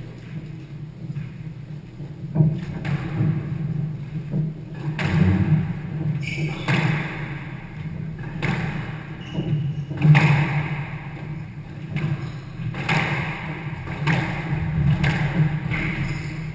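Squash rally: the hard rubber squash ball being struck by the rackets and thudding off the court walls, giving sharp knocks at irregular spacing, roughly one every second or two.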